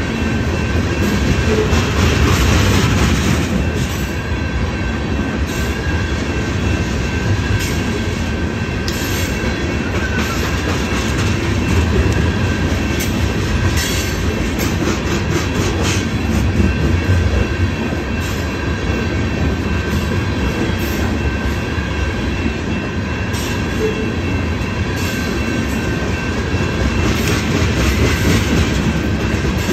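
Freight train of tank cars rolling past through a level crossing: a continuous heavy rumble of steel wheels on rail, with scattered clacks as the wheels pass over joints and a thin steady high tone throughout.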